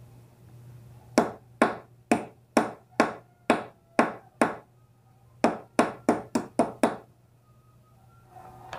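Hammer blows driving a cartridge bearing into a bicycle hub part: about nine even taps, a short pause, then six quicker taps, each a sharp knock with a brief ring.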